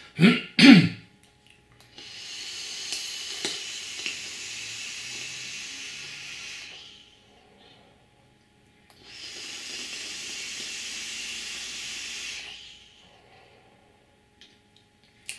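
Joyetech Cuboid Mini sub-ohm atomizer with a 0.26 ohm coil at 32 W being vaped. There is a long hissing draw of about four and a half seconds through the device, with a slight gurgle from the atomizer. After a short pause comes a second hiss of about three and a half seconds as the vapour is blown out.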